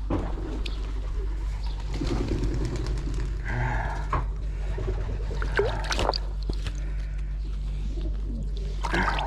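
Pigeons cooing, over a steady low hum, with a few sharp knocks.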